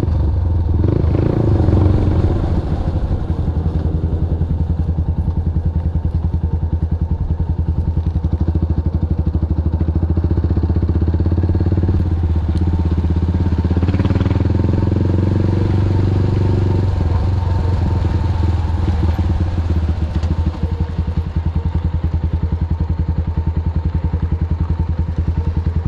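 Motorcycle engine running as the bike is ridden, a steady low pulsing note heard from the handlebars, with a brief swell about two seconds in.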